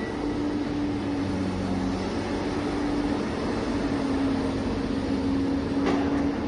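Electric drive of a radio-controlled construction machine running with a steady whine, and a brief click about six seconds in.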